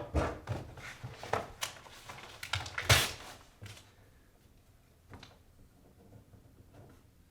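A string of short knocks and clicks over the first few seconds, the loudest about three seconds in, then only a faint knock or two.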